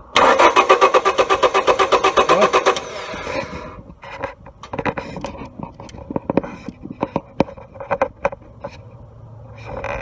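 1999 Honda Civic 1.6-litre SOHC VTEC four-cylinder cranking on the starter, a fast, even pulsing for nearly three seconds without catching: a crank-no-start with no spark from the ignition coil. Scattered clicks and knocks follow.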